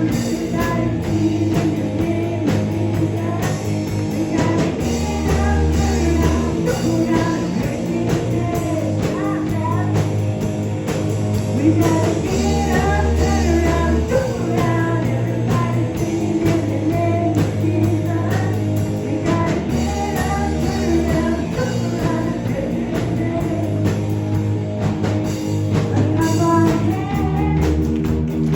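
Music with singing, guitar and a steady bass line.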